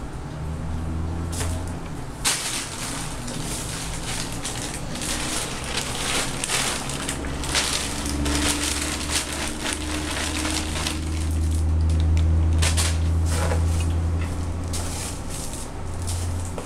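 Dry Cheerios crunching and rattling in irregular crackles as a toddler sweeps and pats through a pile of spilled cereal on the carpet, mixed with the crinkle of a plastic bag he handles.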